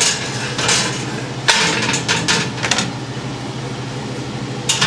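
Metal oven rack and baking tray being pulled out with a casserole dish on them: a sharp clank about a second and a half in, a few lighter clatters after it and another knock near the end, over a steady hum.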